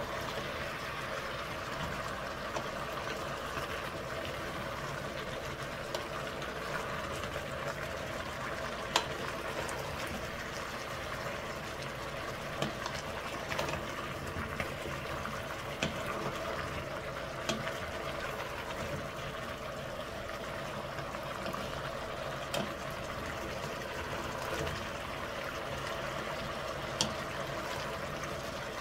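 Potatoes and carrots frying in oil in a pot: a steady sizzle with a few sharp pops now and then.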